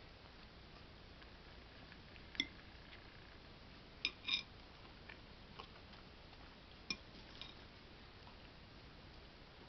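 A handful of short, light clicks and clinks over a faint room hiss: one sharp clink about two and a half seconds in, a close pair about four seconds in, another near seven seconds, and a few fainter ticks between.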